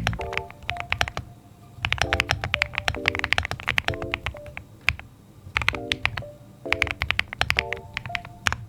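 Typing on an RD75 mechanical keyboard: bursts of rapid key clicks separated by short pauses, over background music.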